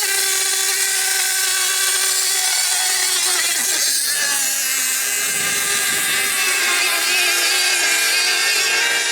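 Several high-revving racing outboard engines whining at once, their pitches rising and falling as they rev and run on the course.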